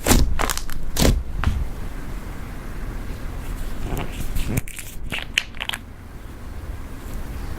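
Makeup being crushed and worked into butter slime: scattered sharp crunches and crackles, the loudest at the start and about a second in, then a small cluster a few seconds later.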